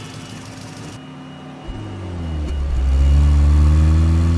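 Police car's engine starting with a sudden onset about one and a half seconds in, then revving up, rising in pitch and growing loud, and holding near the end.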